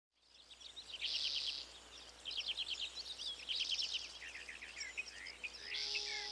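Songbirds chirping and trilling, fading in at the start: runs of quick high chirps, with a short buzzy trill about every two and a half seconds.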